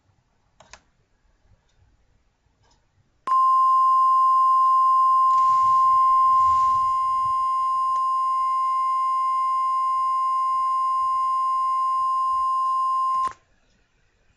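Emergency alert attention tone: a single steady, high-pitched beep held for about ten seconds, starting a little over three seconds in and cutting off sharply, signalling that an emergency alert message follows. Faint clicks come before it.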